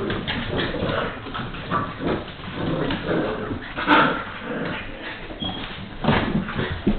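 Two pit bull puppies play-wrestling, their claws scrabbling and clattering on a hardwood floor, mixed with small puppy vocal noises. Louder scuffles come about four seconds in and again near the end.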